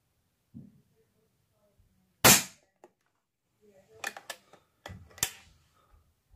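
EDgun Lelya 2.0 .22 PCP air rifle discharging as its trigger breaks under a slow pull, a single sharp crack about two seconds in. A few lighter clicks and knocks follow, then a smaller snap.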